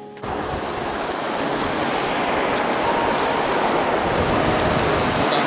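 Steady rush of a fast-flowing river, an even noise of water that comes in suddenly about a quarter second in and grows slightly louder.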